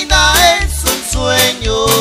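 Live Latin dance-band music: an electronic keyboard carries the melody over a bass line and a steady beat of about two strokes a second.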